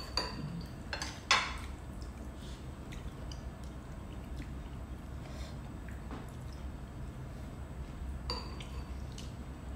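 Eating at the table: a metal spoon and chopsticks clinking against ceramic soup bowls, with soft sipping of curry broth. There is one sharp clink about a second in and another near the end.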